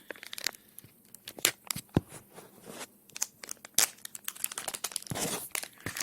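Packaging handled and torn open by hand: irregular crinkling, rustling and sharp crackles as a small part is unwrapped.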